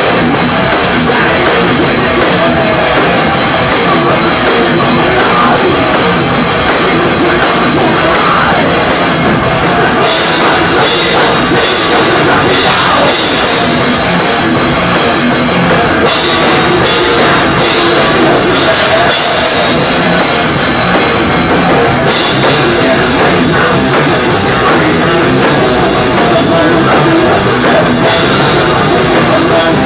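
Live thrash metal band playing loud, with the drum kit up front and dense cymbal wash over the band.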